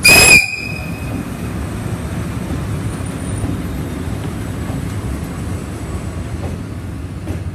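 A short, very loud high-pitched whistle in the first half second, then the steady low rumble of an EF65 electric locomotive and its container freight wagons rolling past.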